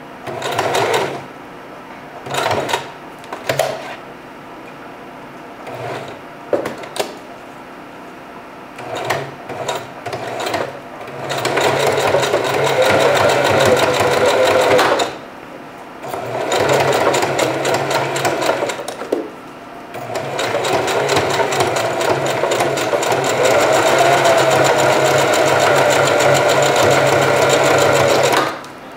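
Singer 4423 Heavy Duty sewing machine stitching a hair weft onto a wig cap. It starts with several short bursts of a second or so, then makes three longer runs of a few seconds each, with its speed wavering.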